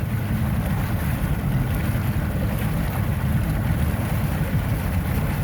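Small boat under way at low speed: a steady low rumble of the motor and water, mixed with wind buffeting the microphone.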